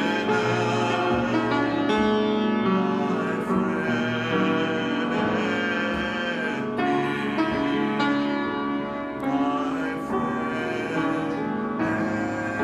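Slow worship music with held, sustained chords that change every second or two.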